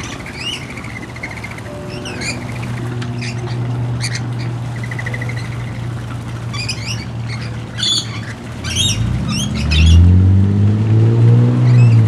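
Rainbow lorikeets giving short, harsh squawking and chattering calls, busiest in the second half, over a steady low hum. About nine seconds in, a louder low droning sound rises in pitch and stays up to the end.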